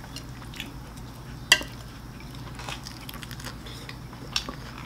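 Chopsticks clicking and tapping against a ceramic plate while eating, a few light clicks with one sharper click about a second and a half in, over a faint low hum.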